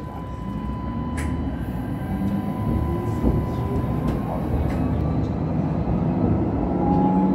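Alstom Citadis X05 light-rail tram heard from inside, pulling away from a stop and gathering speed: running rumble with a steady whine, growing slowly louder.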